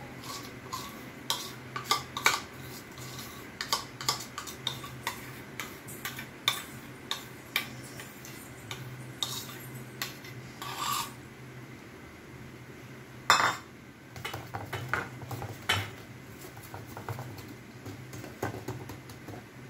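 Spoon scraping and clinking against a stainless steel bowl as dhokla batter is emptied into an oiled steel plate, with scattered metal clinks and knocks of steel dishware, the loudest about thirteen seconds in. A low steady hum runs underneath.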